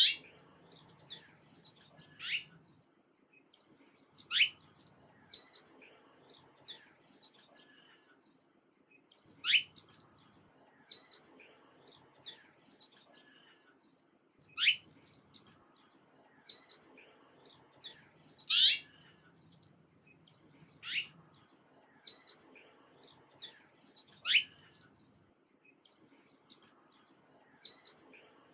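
Small birds chirping. Loud, sharp chirps that drop quickly in pitch come every few seconds, with fainter, high, short twitters between them.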